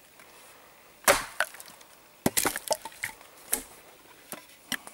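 Axe chopping a branch laid over a wooden stump: a string of sharp strikes into the wood, the loudest about a second in, with lighter knocks and cracks between them.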